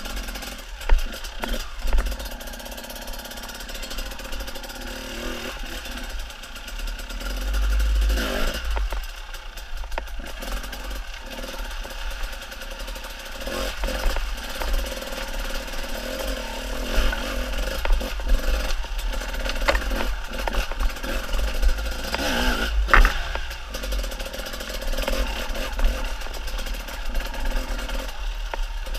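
Dirt bike engine running and revving up and down over rough ground, with sharp knocks and clatter from the bike over rocks.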